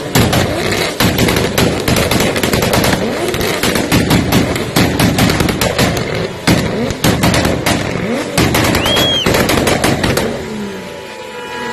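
Modified car's exhaust firing rapid, loud pops and bangs as the engine is revved, spitting flames from the tailpipe; the popping eases off about ten seconds in.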